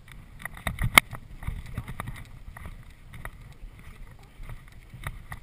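A horse's hooves striking turf and its tack rattling and jingling as it moves off under saddle, with wind rumbling on a helmet camera. A cluster of louder knocks comes about a second in.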